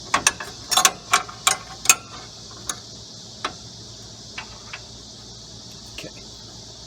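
Socket ratchet clicking while bolts on the lawn tractor's steering gear plate are tightened: a quick run of sharp clicks in the first two seconds, then occasional single clicks.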